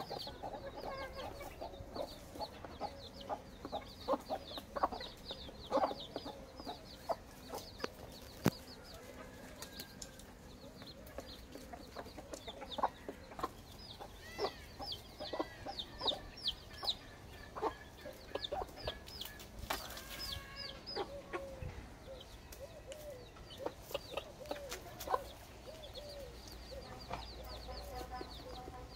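Domestic chicks peeping in many short, high, falling chirps, with a hen clucking low underneath and a scattering of sharp taps.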